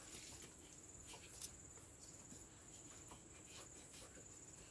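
Near silence: a faint steady high-pitched tone with a few faint light clicks, one a little sharper about a second and a half in.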